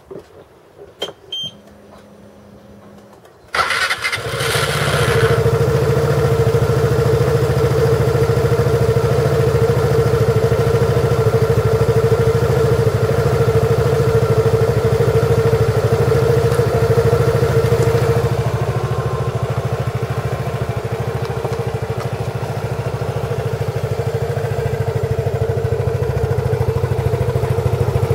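Piaggio MP3 scooter's single-cylinder four-stroke engine starting a few seconds in after a few faint clicks, then idling steadily. The idle eases slightly about two-thirds through. This is the engine after repair of a clutch noise traced to play in the plate that holds the clutch shoes.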